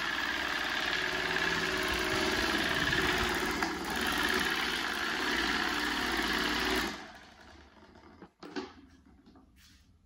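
Cadence desk fan running fast, a loud steady whir with a motor hum, cutting off suddenly about seven seconds in. A faint knock follows a second and a half later.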